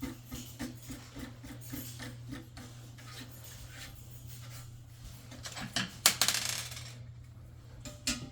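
Small hard objects, likely metal, clinking and clattering with scattered light clicks, and a louder clatter about six seconds in. A steady low hum runs underneath.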